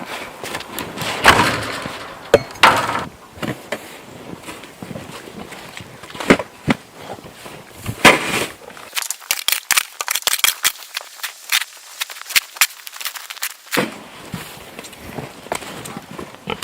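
Ice and crusted snow being broken up by hand with a tool: sharp cracking impacts every second or two, then a few seconds of rapid crackling clicks around the middle.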